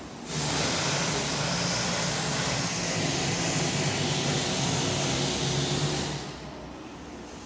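A loud, steady rushing hiss with a low hum under it, from a machine in the workshop. It switches on suddenly and cuts off about six seconds later.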